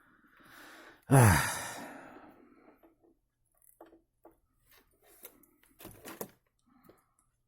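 A man's loud, drawn-out sigh about a second in, falling in pitch as it fades. Then a scattered series of light clicks and taps from small plastic parts being handled.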